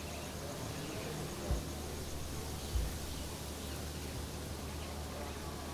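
Outdoor ambience: a steady low hum and hiss, with two brief low thumps about one and a half and nearly three seconds in.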